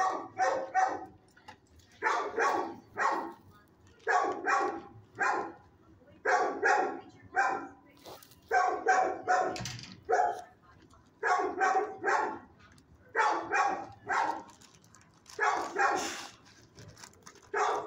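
Dog barking repeatedly in a shelter kennel, in quick runs of about three barks every couple of seconds.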